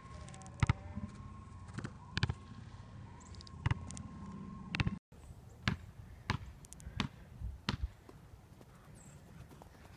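Scattered sharp knocks and thuds, about one or two a second, in two stretches split by an abrupt cut about five seconds in.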